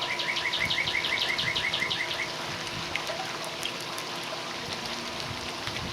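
A songbird singing a fast run of short, high chirps, about seven a second, that stops a little over two seconds in; steady outdoor background hiss continues after.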